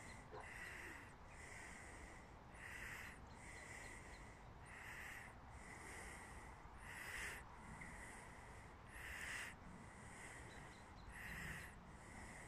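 Quiet, regular breathing close to a phone's microphone, in and out about once a second, over a faint outdoor hiss.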